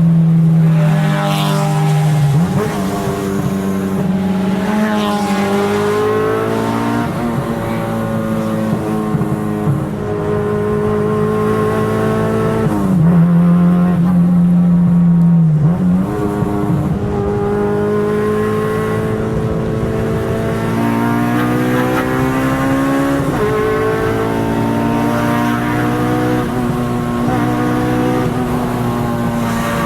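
Car engine under hard acceleration, its pitch climbing through the revs and dropping sharply at each gear change, several times over.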